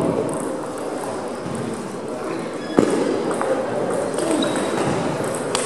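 Table tennis ball knocking against paddles and the table in a rally, a few sharp knocks with the loudest about halfway through and another near the end.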